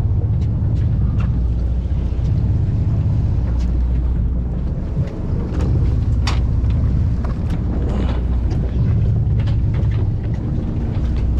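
Sportfishing boat's engine running, a steady low rumble, with wind on the microphone and occasional clicks and knocks.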